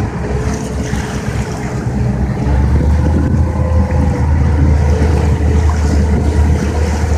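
Engines of a 31-foot Tiara Open sportfishing boat running at low speed, a steady low drone that grows louder about two and a half seconds in, with wind on the microphone and water noise.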